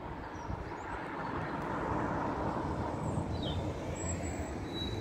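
A road vehicle passing on the street, its tyre and engine noise swelling to a peak about two seconds in and then slowly fading.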